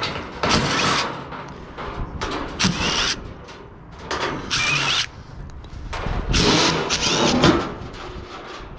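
Power drill backing screws out of a window air conditioner's sheet-metal casing in about four short runs, its motor whine rising each time it spins up.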